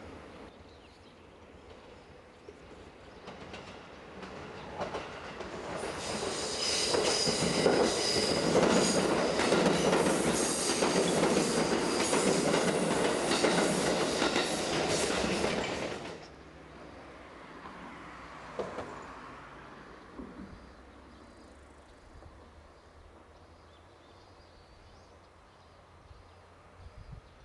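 A train passing close by, its wheels clattering rhythmically over the rail joints. The sound builds for a few seconds, stays loud for about ten seconds, and drops off abruptly about sixteen seconds in.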